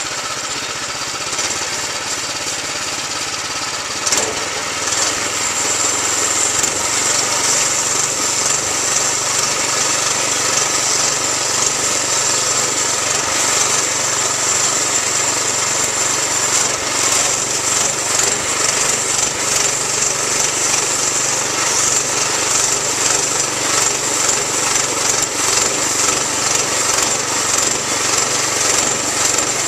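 Wood-Mizer LX25 portable bandsaw mill running steadily on its 7 hp Kohler engine, its band blade sawing through a white oak log, growing a little louder about five seconds in with a steady high whine.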